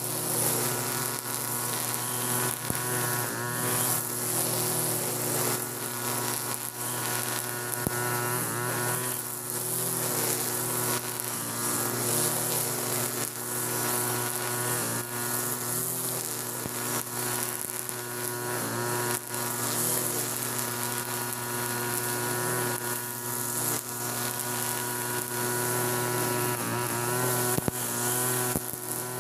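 TB43 two-stroke brush cutter with a nylon-line trimmer head running steadily at high revs while cutting grass, its engine note wavering slightly as the load changes.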